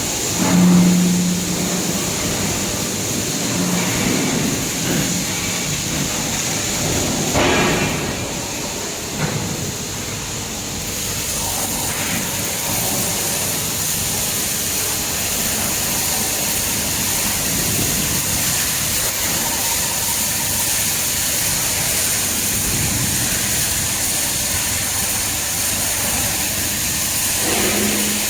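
Robotic arc-welding cell running: a steady hiss, with a short low hum about a second in and a brief louder rush about a quarter of the way through.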